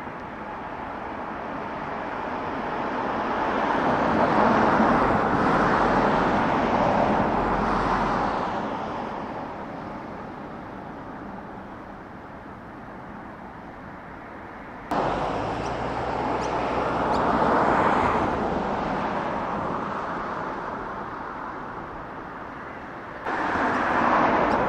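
Jet engine roar of a C-17 Globemaster III's four turbofans as it flies low past, swelling and fading. The sound jumps up abruptly twice, about fifteen seconds in and near the end.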